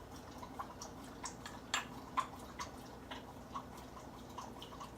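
Olive oil dripping slowly into a measuring cup: faint soft plips, roughly two a second.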